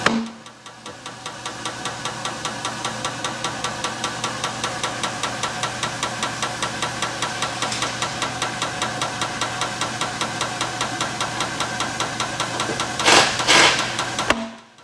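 Tyre-changer turntable motor running as the tyre is mounted onto the alloy rim, a steady hum with a fast regular ticking. It drops at the very start and builds back up over a second or two, and near the end there are two short loud bursts before it stops.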